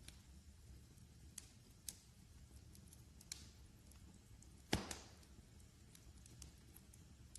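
Fireplace fire crackling softly, with scattered small crackles and one louder pop a little over halfway through, followed by a brief hiss.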